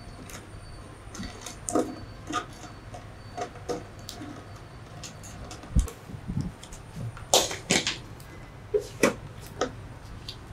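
A small welding machine's rubber cables and plastic case being handled: scattered clicks, knocks and rustles, with a dull thump about six seconds in and louder scrapes a little after seven seconds and again near nine seconds.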